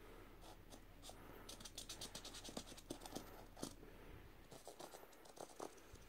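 Felt-tip permanent marker scribbling on the white panels of a Nike Air Max 90 trainer: faint, quick scratchy strokes, thickest in a rapid run about two seconds in.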